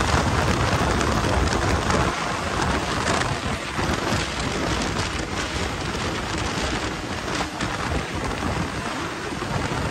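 Riding a snowmobile at speed over packed, tracked snow: a steady rushing noise of wind on the microphone mixed with the machine's running and track noise, a little louder in the first couple of seconds.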